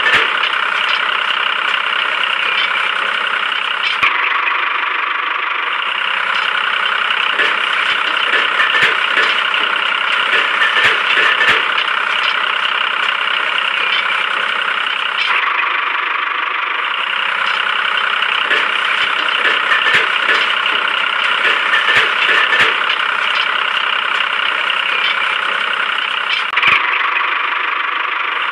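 A motor running steadily, with scattered clicks and knocks, changing abruptly a few times.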